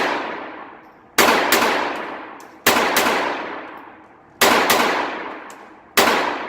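Five shots from a Phoenix Arms .22 LR pistol, about a second and a half apart, each one ringing out for about a second afterwards.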